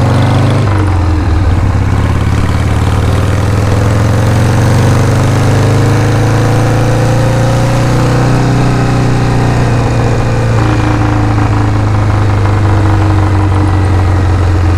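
Motorcycle engine running under way, heard from the bike itself. Its pitch dips briefly under a second in, climbs steadily as it accelerates until about eight seconds in, then falls away and settles.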